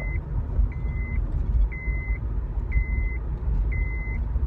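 An electronic beeper sounding a steady high tone about once a second, over a continuous low engine-like rumble.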